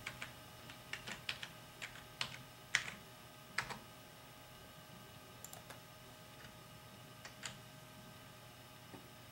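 Computer keyboard being typed on: a quick run of keystrokes over the first four seconds or so, then only a few scattered clicks.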